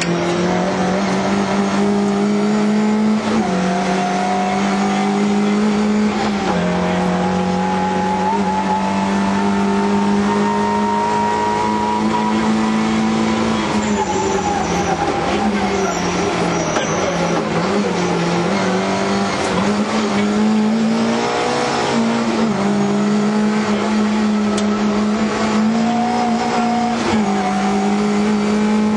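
Lada VFTS rally car engine heard from inside the cabin at full stage pace, revving up through the gears with quick drops at each shift. About halfway through the revs fall away as the car slows, then it pulls hard up through the gears again.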